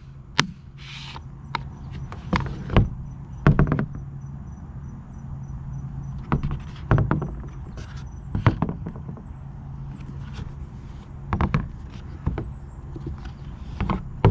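Pelican 1400 hard plastic case being handled, tilted and turned on a table: a string of irregular knocks and taps from its shell, some a few seconds apart and some in quick pairs, over a steady low hum.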